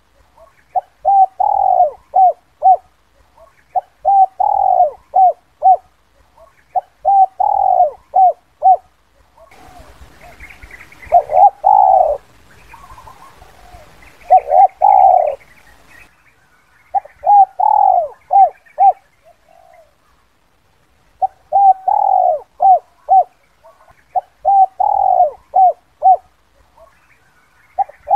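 Spotted dove giving its 'kuk 2' cooing call: phrases of one longer coo followed by two or three short coos, repeated about every three seconds, with a short pause partway through. Faint chirps of other small birds and a light hiss sit behind some of the phrases.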